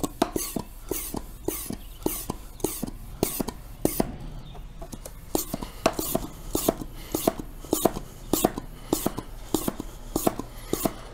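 Hand-pump oil extractor being pumped: the plunger is stroked up and down about twice a second, each stroke a click and a rasping hiss of air, building vacuum in the canister to suck old engine oil out of a riding mower.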